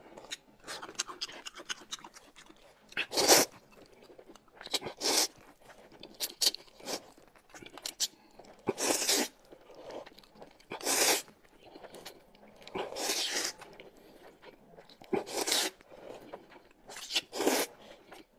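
Close-up eating sounds: noodles and spoonfuls of soup slurped in a string of loud slurps about every two seconds, the loudest about three seconds in, with quieter chewing in between.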